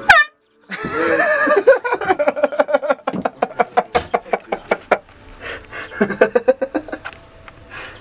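A man's voice letting out a loud, held, foghorn-like honk. It breaks into rapid bursts of laughter that run for several seconds and come back briefly near the end.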